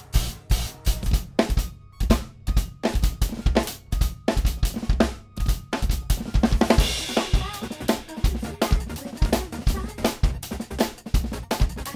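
Acoustic drum kit playing a fast, busy groove of kick, snare and rimshot hits, coming in with a loud hit at the start. A crash cymbal rings out about six seconds in.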